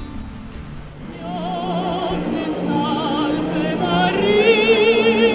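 Music with operatic singing: a voice with wide vibrato comes in about a second in over sustained accompaniment and grows louder toward the end.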